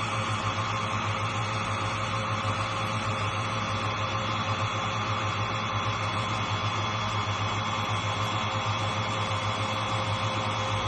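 Xiaomi Truclean W20 wet-dry vacuum running steadily, a constant motor whine over an even rush of air.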